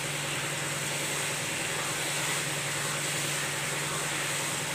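Jaggery syrup boiling vigorously in a nonstick wok, a steady bubbling sizzle as it thickens toward a thick syrup. A steady low hum runs underneath.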